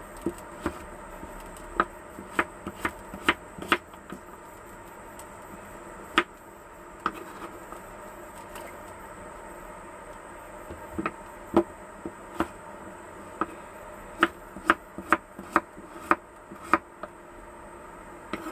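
Kitchen knife chopping zucchini on a wooden cutting board: sharp knocks in irregular runs, a cluster of about six in the first four seconds and another busy run in the last few seconds.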